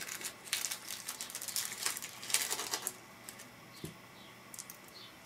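A thin clear plastic bag crinkling and rustling as it is pulled open by hand for about three seconds. A light knock follows near the four-second mark, as the small metal screws tip out into a palm.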